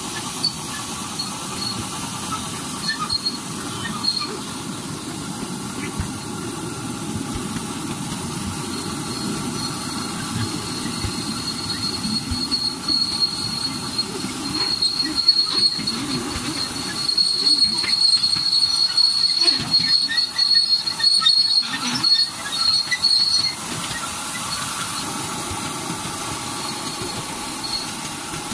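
Miniature ride-on park railway train running along its narrow-gauge track, heard from aboard the cars: a steady rumble of the wheels on the rails. About a third of the way in a high wheel squeal sets in, growing louder and uneven in the latter half before fading out well before the end.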